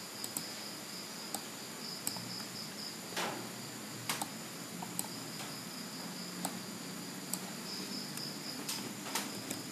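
Scattered sharp clicks of a computer mouse, about one a second, over steady room hiss with a faint high-pitched trill that comes and goes.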